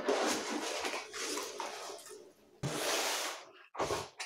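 Cardboard packaging and plastic wrapping rustling and scraping as a boxed set-top box is unpacked by hand: a long rustle, a short pause, then a second burst and a few shorter ones near the end.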